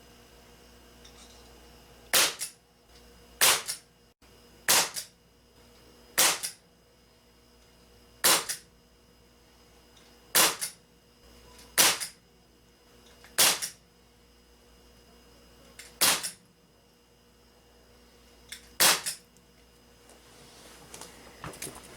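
Crosman Vigilante CO2 pistol firing BBs ten times, about every one and a half to two and a half seconds, during a chronograph velocity test. Each sharp pop is followed a fraction of a second later by a fainter second crack.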